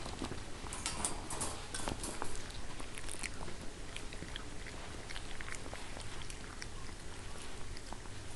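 Siberian husky puppies chewing and mouthing: a run of small wet clicks and crunches, busiest in the first three seconds and sparser after.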